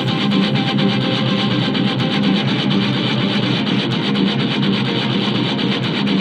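Guitar-led rock music, sounding thin, with the bass and top end filtered out.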